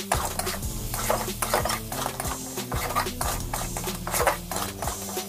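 Metal tongs stirring crab curry in a steel kadai, with repeated scrapes and clinks against the pan about two or three times a second.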